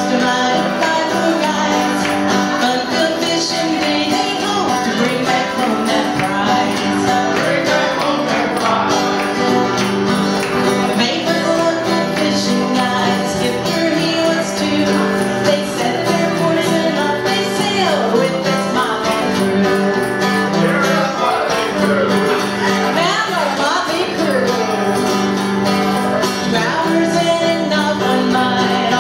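Music: a song sung by a woman with guitar accompaniment and light jingling percussion.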